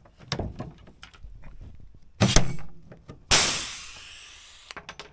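Pneumatic pop-rivet gun setting blind rivets to fix a hinge bracket to a fiberglass hood: a sharp snap about two seconds in, then another about a second later followed by a rush of exhaust air that fades over about a second and a half. Light clicks of parts being handled come before.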